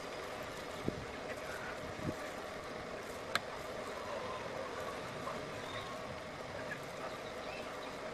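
Steady outdoor background noise with a faint hum, broken by a few light, sharp clicks as a spoon taps a glass beaker while white powder is spooned in, the sharpest about three and a half seconds in.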